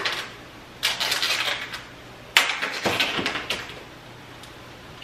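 Clatter of a utensil and dishware being handled on a kitchen counter, in two short bursts about one and two and a half seconds in, the second starting with a sharp clack.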